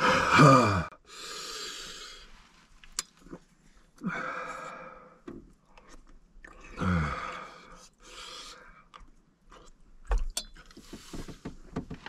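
A man's groans, falling in pitch, and heavy hissing breaths and gasps as he reels from the burn of extremely hot sauce: three groans, the loudest at the start, with breathing in between. A few short clinks of a fork against a metal bowl.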